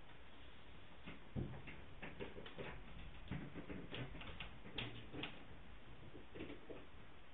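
Handling noise: a scatter of light, irregular clicks and taps, some with a soft low thump, as the recording device is moved by hand along the rifle.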